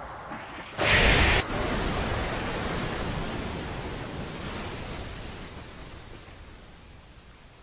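Anime battle sound effect: a sudden loud blast about a second in that cuts off after half a second, followed by a hissing rush that slowly fades away.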